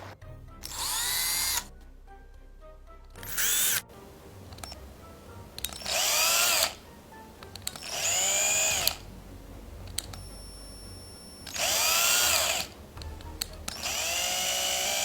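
A small high-speed motor whirring in six short bursts of about a second each, its pitch sweeping up as it spins up each time.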